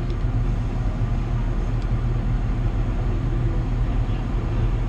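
John Deere 7800 tractor's six-cylinder diesel engine running steadily, heard inside the cab as an even, low hum.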